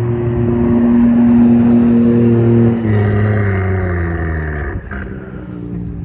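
A car's engine running hard as it drives off. Its note holds steady, drops suddenly about halfway through, then slides lower as it gets quieter.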